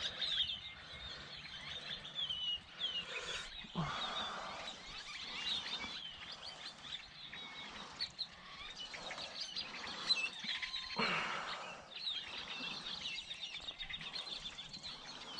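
Small birds chirping and twittering over and over, with two short rushes of noise, about four seconds in and again near eleven seconds.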